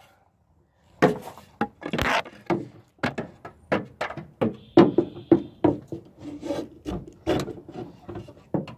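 A wooden board knocking and scraping against the metal of a car's hood and engine bay as it is wedged in as a makeshift hood prop: an irregular run of short wooden knocks and rubs that starts about a second in.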